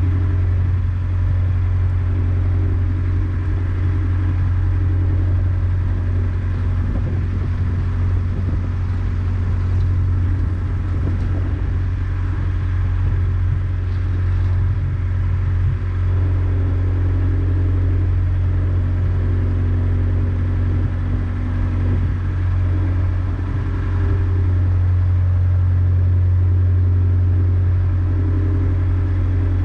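Narrowboat's diesel engine running steadily at cruising speed, a constant low hum that grows a little louder near the end.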